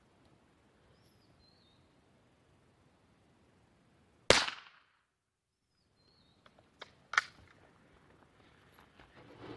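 A single .22 LR gunshot about four seconds in, fired at a golf ball set against a metal plate. A second, fainter sharp knock follows about three seconds later, and faint bird chirps sound in the quiet.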